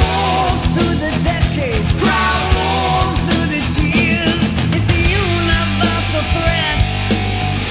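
Loud rock music with drums and guitars: the song's instrumental stretch between sung lines.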